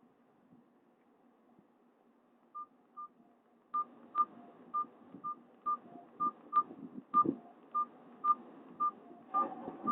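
Mobile phone keypad beeping as buttons are pressed: after a near-silent start, about a dozen short, identical high beeps, roughly two a second, each with a soft click of the key.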